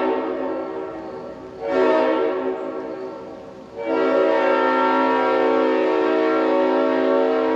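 Leslie RS5TF full-orifice five-chime locomotive horn blowing its chord. A note dies away just after the start, a short blast comes about two seconds in, and a long steady blast begins about four seconds in.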